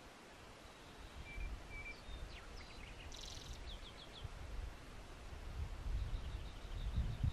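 Outdoor ambience of small birds chirping: a few short chirps, a brief rapid trill about three seconds in, and a quick run of repeated notes near the end, over a low, uneven rumble that grows toward the end.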